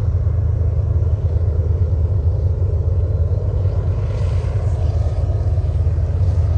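Diesel-electric freight locomotive working as a rear distributed-power unit, pushing a long container train up a 2.5% grade. Its engine gives a steady, heavy low rumble under load.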